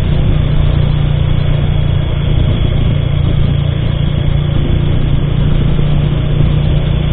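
Bajaj Pulsar motorcycle's single-cylinder engine running steadily at a constant cruising speed, with road and wind noise.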